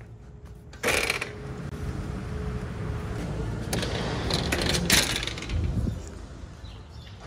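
Glass entrance doors being opened: a loud clunk about a second in, then a steady rush of noise, and several sharp metal clicks and clanks of the door hardware around four to five seconds in.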